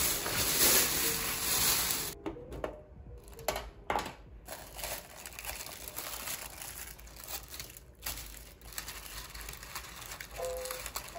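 Crinkling and crackling of packaging being handled, loudest in the first two seconds, then scattered clicks and rustles. Quiet background music plays at the start and comes back near the end.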